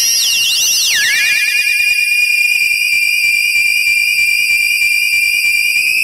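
High-pitched electronic synthesizer tone that swoops up and back down in the first second or so, with echoing repeats trailing it, then holds one steady note.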